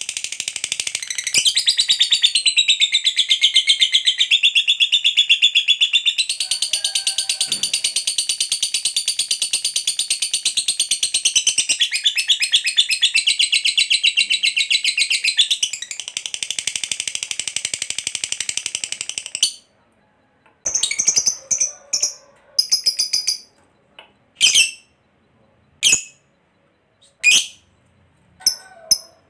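Lovebird giving a long, unbroken, rapid high-pitched trilling chatter, the 'ngekek panjang' long trill. It stops abruptly about two-thirds of the way through, and the bird then gives a few short separate chirps.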